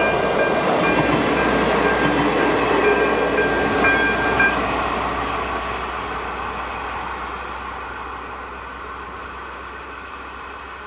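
A passenger train running away from a railway level crossing, its noise loudest at first and fading steadily. The crossing's electronic warning bell (AŽD ZV-02 e-bell) rings over it and stops about four and a half seconds in, as the crossing switches off once the train has passed.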